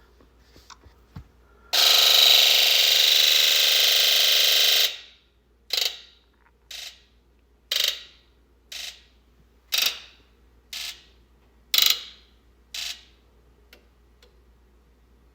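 Injector buzz test on a 1996 Ford F-250's 7.3L Power Stroke diesel: the injectors buzz together for about three seconds, then buzz one at a time in eight short pulses about a second apart, alternately louder and quieter. This is the test that shows the driver's side (bank 2) injectors are dead, consistent with the P1294 high-side-open code.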